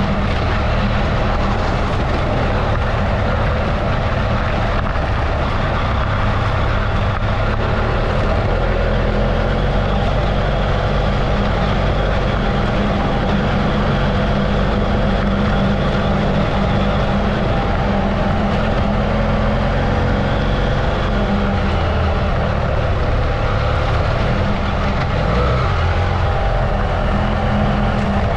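Adventure motorcycle under way on a dirt road. The engine runs at a fairly steady pitch over a constant rush of wind and road noise.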